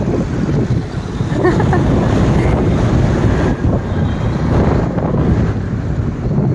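Wind buffeting the microphone of a phone carried on a moving scooter, a steady heavy rumble, with road and traffic noise under it.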